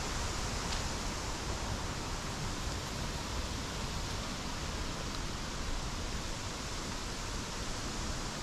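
Steady rushing outdoor noise, with wind buffeting the microphone in a low, unsteady rumble.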